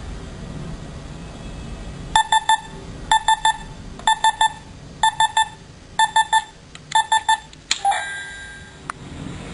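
Bomb alarm clock beeping: starting about two seconds in, six quick sets of three short high beeps, about one set a second. Near the end comes a sharp click with a brief rattle.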